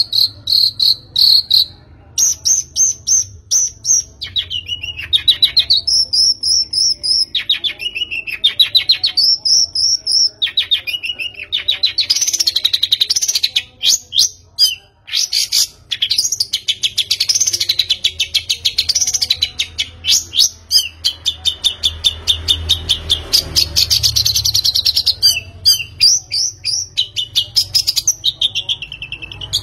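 A bird singing a long, varied song of rapid trills and pulsed high notes that sweep up and down in pitch, with short breaks between phrases.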